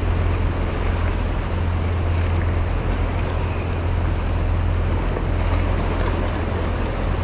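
Steady wind rumbling on the microphone over the wash of harbour seawater, an even noise with no breaks.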